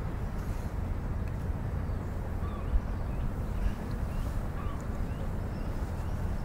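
Steady low outdoor rumble with faint, short bird chirps scattered through it.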